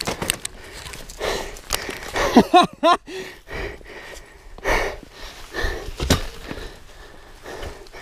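Footfalls and knocks on loose rock, with a short wavering, warbling call about two and a half seconds in.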